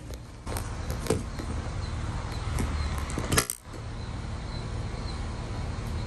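Handling noise from a hand-held camera being moved and set in place: a low rumble with a few clicks, and a sharp knock about three and a half seconds in as it settles. A faint high chirp repeats about twice a second behind it.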